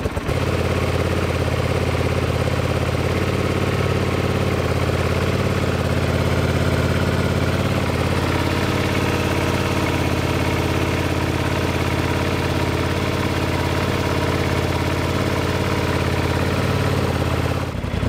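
Honda GL500 Silverwing's liquid-cooled V-twin engine idling steadily soon after a choke start, run to check a newly fitted water pump mechanical seal for leaks.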